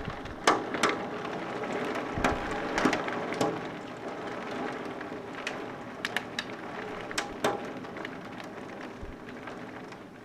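Rain falling steadily on a hard surface, with scattered louder drops hitting at irregular moments.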